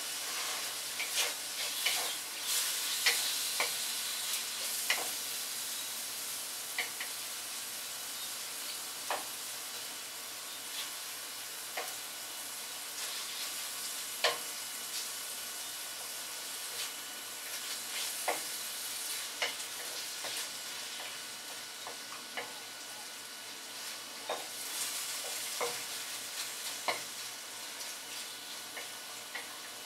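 Chicken pieces sizzling in hot oil in a wok as they are stirred, with a steady hiss broken by scattered, irregular clicks and scrapes of the utensil against the pan.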